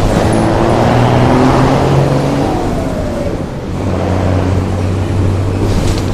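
City bus engine running hard under way. A whine falls in pitch over the first few seconds, and the engine note drops away briefly about three seconds in before picking up again.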